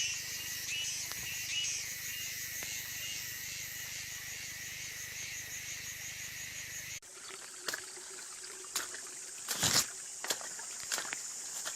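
Forest ambience: a dense, high-pitched chorus of pulsing, trilling calls, cut off suddenly about seven seconds in and replaced by a steady high insect drone with scattered clicks and knocks.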